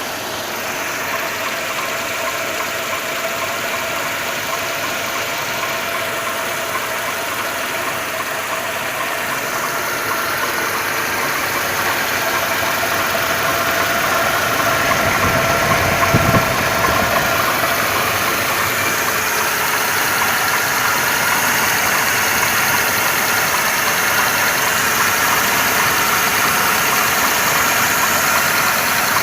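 Mercedes-Benz M111 2.2-litre four-cylinder petrol engine running with a knock whose cause the owner is asking about. There is a brief low rumble about halfway through.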